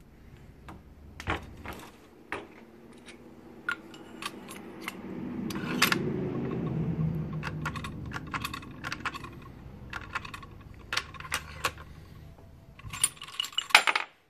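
Sharp metallic clicks and clacks of a bolt-action rifle's bolt being worked to chamber and extract a freshly resized .300 Win Mag case, a check of how snugly the bolt closes on it. The clicks are scattered, with a low rubbing sound in the middle and a quick, loud cluster of clacks just before the end.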